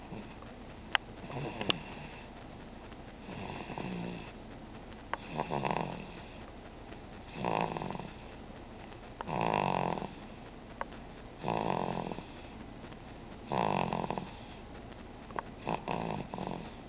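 Four-month-old baby snoring in his sleep, one snore on each breath about every two seconds. Two sharp clicks a second or so in are the loudest sounds.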